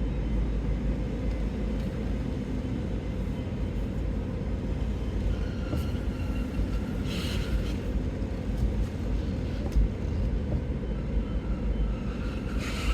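Low, steady rumble of a car moving slowly, heard from inside the cabin, with a short fainter higher sound about seven seconds in.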